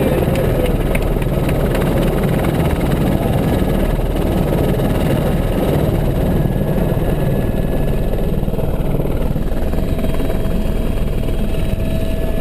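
Helicopter in flight, heard from on board: a loud, steady drone of engine and rotor. A faint steady whine comes in near the end.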